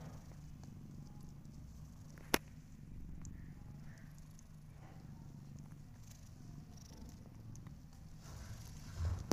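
Cat purring, a steady low rumble, with one sharp click a little over two seconds in and a short soft thump near the end.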